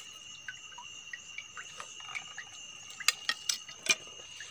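Small drips and light splashes of shallow stream water around wading feet, with a cluster of sharper clicks and splashes about three seconds in. A steady high-pitched trill runs underneath.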